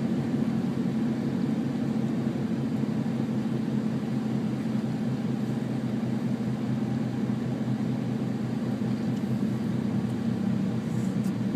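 Car engine running steadily, heard from inside the cabin as a low, even drone.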